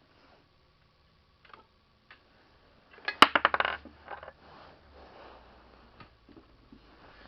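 Small metal parts and tools clattering during hand work on a small engine: a couple of light clicks, then a quick, loud run of metallic clicks about three seconds in, followed by softer rustling and handling noise.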